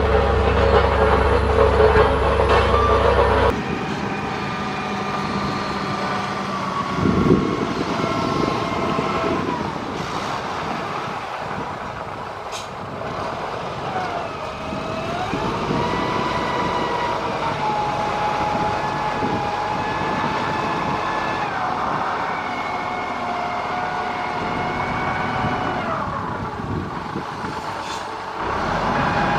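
Heavy construction machine's diesel engine running. It is loud and low for the first few seconds, then the sound changes abruptly, and after that its whining pitch holds, glides up and down, and settles again as the engine speed and load change.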